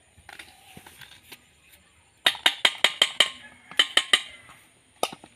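Metal spoon clinking against a stainless-steel bowl while wood apple pulp is scraped out. A quick run of sharp, ringing clinks starts about two seconds in, followed by a few more spaced-out clinks.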